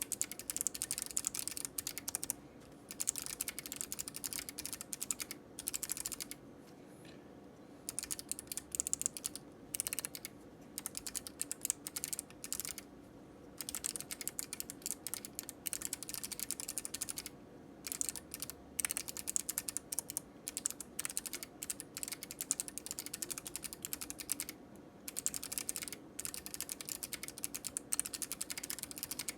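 Typing on a POK3R LE mechanical keyboard with Kailh Box Navy clicky switches, lubed and with sound-dampening foam in the case: fast runs of sharp key clicks in bursts of a few seconds, broken by brief pauses.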